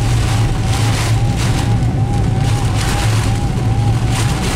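Inside a car driving through heavy rain: a steady low engine and road drone with a hiss of rain and wind that swells and eases, and a faint squeaky tone that keeps repeating.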